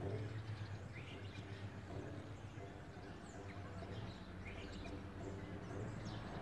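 Guembri, the Gnawa three-string bass lute, plucked in a repeating pattern of low notes, with a few short high chirps of birds over it.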